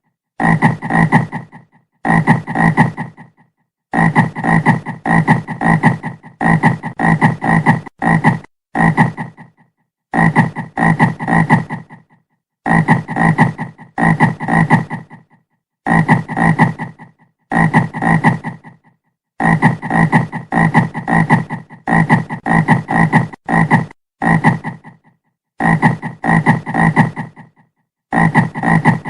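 Frog croaking in repeated bouts, each a quick run of pulses lasting about one to two seconds, with short silent gaps between them.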